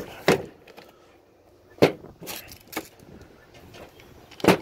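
Handling knocks and clatter as cordless tools and their boxes are moved and set down on a mat. About six short, sharp knocks come unevenly, the loudest at the start and just before the end.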